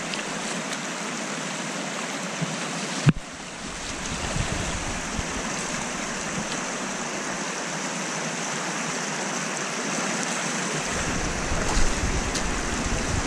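Shallow rocky river rushing over stones: a steady hiss of running water. There is a single sharp knock about three seconds in, and a low rumble joins near the end.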